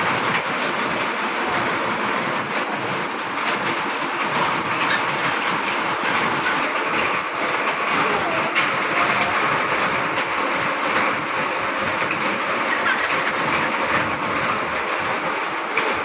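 Steady, heavy rain falling.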